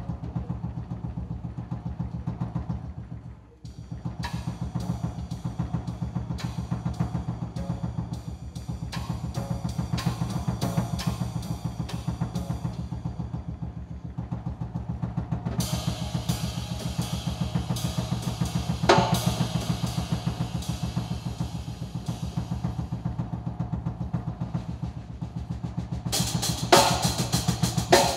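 Jazz drum kit and plucked double bass playing a fast, busy groove, with a short break about three and a half seconds in. Cymbals grow brighter from about halfway, with a loud crash partway through and more crashes near the end.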